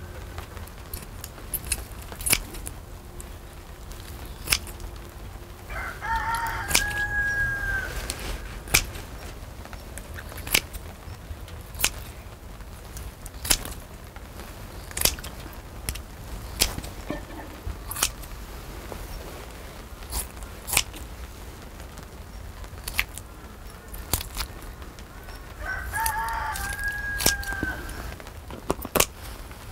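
A rooster crowing twice, once about six seconds in and again near the end, each crow lasting about two seconds. Throughout, sharp metallic clicks and snips of kitchen scissors and steel tongs cutting up a cooked octopus make the loudest moments.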